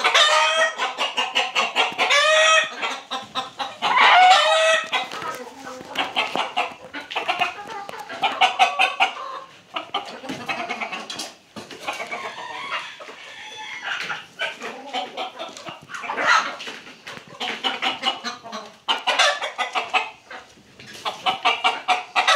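A flock of cross-bred chickens clucking rapidly and continuously, with a few louder, drawn-out calls about two and four seconds in.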